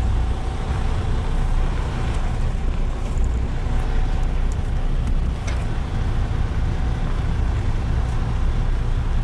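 Semi-truck's diesel engine running steadily under light load as the rig crawls in low-range gear, heard through the open cab window. A few faint clicks about five seconds in.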